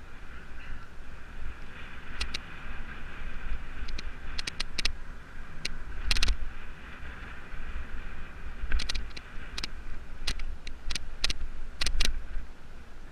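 Mountain bike ridden fast down a dirt forest trail: wind rumbling on the microphone, a steady high whirr, and frequent sharp clicks and rattles of the bike over bumps.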